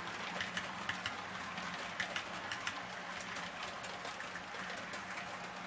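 HO-scale model train rolling along Kato Unitrack, its wheels making rapid, irregular light clicks on the track, over a steady low hum.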